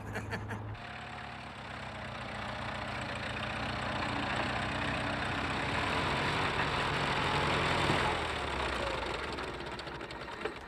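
A vintage car's engine running. Early on there is a steady hum, then the engine swells over several seconds and dies away near the end.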